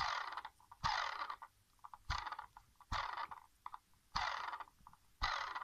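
Brushless motor of a Hubsan H501S drone spun briefly six times, each spin starting with a click and dying away in about half a second. This is the faulty motor, which the owner calls unbalanced and bad.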